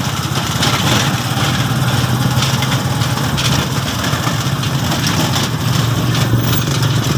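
Motorcycle engine of a tricycle running steadily, heard from inside its sidecar: a loud, even, low drone.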